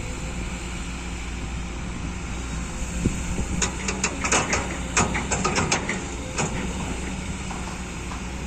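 Excavator's diesel engine running steadily. Partway through comes a quick run of sharp knocks and scrapes, lasting about three seconds.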